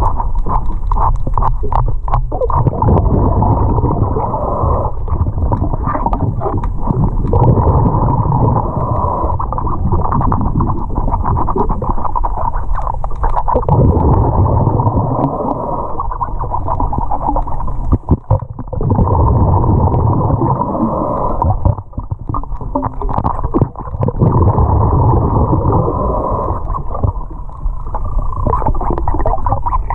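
Muffled underwater sound: water rushing and gurgling, swelling every few seconds, with scattered short clicks and knocks.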